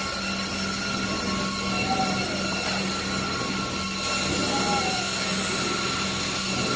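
Carpet-cleaning machine running steadily with a constant whine over a broad rushing noise.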